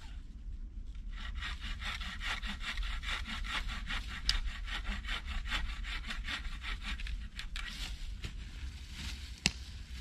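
Hand saw cutting wood in quick, even strokes, about three or four a second, starting about a second in. A sharp click comes about four seconds in and another near the end.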